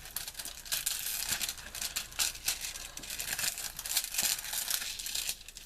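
Packaging crinkling and rustling as it is handled, a dense irregular crackle that eases just before the end.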